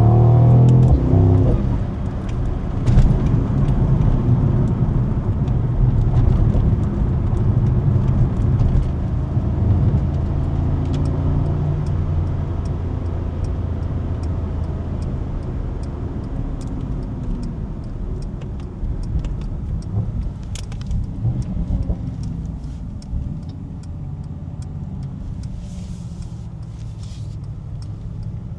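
Mercedes-AMG SL55's 4.0-litre twin-turbo V8 exhaust: the note falls as the revs drop in the first couple of seconds, then it settles into a steady low drone that slowly eases off. Scattered sharp pops and crackles can be heard through it.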